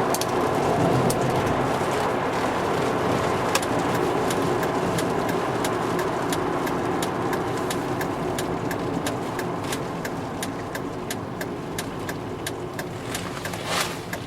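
2001 Volvo V70 T5 being driven, its turbocharged five-cylinder engine and road noise running steadily and slowly easing off, with scattered sharp ticks that come more often toward the end and a brief louder rush near the end.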